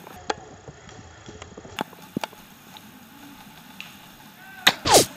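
Airsoft guns firing: scattered sharp clicks, then near the end a louder burst mixed with a short sound that falls steeply in pitch.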